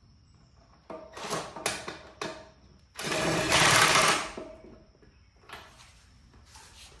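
Handheld power tool running bolts in with a rapid mechanical rattle, in a few short bursts about a second in and then one longer, louder run around three to four seconds in, snugging the bolts up without fully tightening them.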